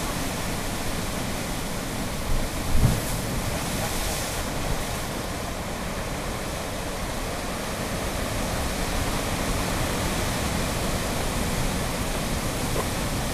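Ocean surf surging and washing through a narrow rock inlet: a steady rushing, with a couple of brief low thumps about two to three seconds in.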